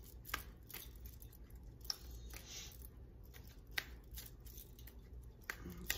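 Tarot cards being shuffled in the hands: soft, scattered card clicks and rustles with a few sharper snaps, over a steady low hum.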